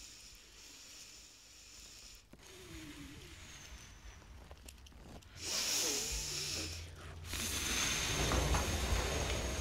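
Hissing, breath-like ambient noise with a few faint wavering tones, swelling about halfway through into a louder hiss over a low rumble.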